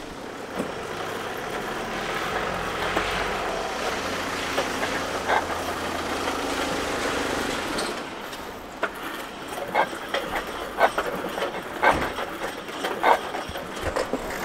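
A motor vehicle engine running steadily. In the second half, a series of sharp clicks and knocks comes over it.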